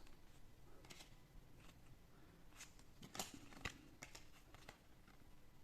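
Faint, scattered soft clicks and slides of trading cards being handled and flipped through.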